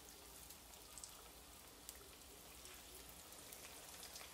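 Floured chicken pieces frying in shallow vegetable oil in a cast iron skillet: a faint, steady sizzle with fine crackles.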